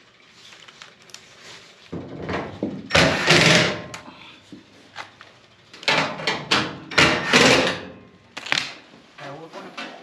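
Cordless drill-driver driving the two screws that hold a Speed Queen commercial dryer's sheet-metal lower front panel, running in four short bursts with the panel clattering.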